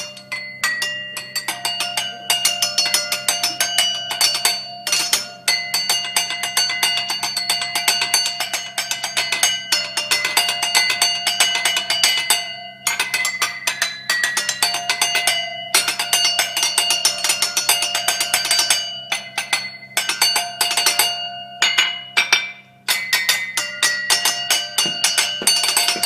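Drumsticks playing fast drum-style patterns and rolls on a row of champagne glasses holding different amounts of water, each glass ringing at its own clear pitch. The playing stops briefly a few times.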